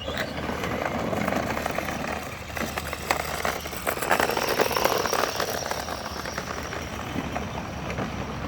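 Power Wheels ride-on toy car, running on an 18-volt Milwaukee M18 battery, driving along: its electric drive motors and gearboxes whir steadily under the noise of its tyres rolling. A faint high whine comes in about halfway through.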